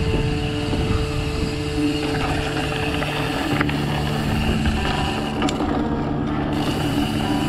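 Steady wind noise on a chest-mounted action camera's microphone, mixed with the rumble of a mountain bike's tyres rolling along a rural path.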